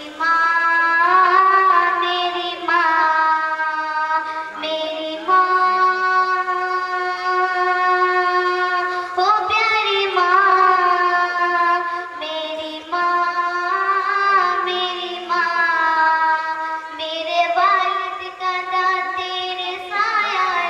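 A young girl singing a naat into a microphone, unaccompanied, in long held phrases with wavering, ornamented notes.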